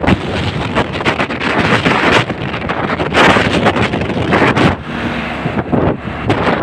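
Strong wind buffeting the microphone in loud, uneven gusts.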